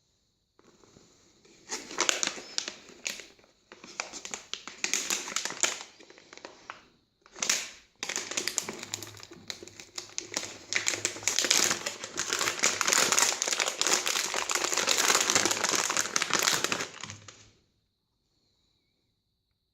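Crinkling and crackling handling noise in several stretches with short breaks, stopping about three-quarters of the way through.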